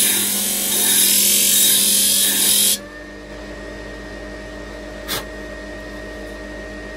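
Parkside PTSG 140 C2 disc sander grinding the end of a wooden dowel: a loud rough rasp of wood on the abrasive disc over the motor's hum. The rasp stops abruptly about three seconds in when the dowel is lifted away, leaving the motor running unloaded with a quieter steady hum, and a short click about five seconds in.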